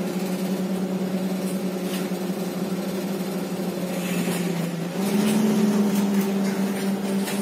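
Irisbus/Renault Agora L articulated city bus, heard from inside the passenger cabin: its Renault MGDR CNG engine drones steadily while the bus drives. About five seconds in the engine note steps up in pitch and gets louder.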